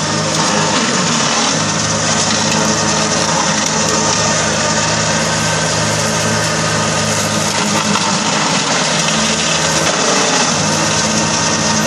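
Kubota compact tractor's diesel engine running steadily under load, with its PTO-driven rotary mower deck spinning as it cuts through tall grass.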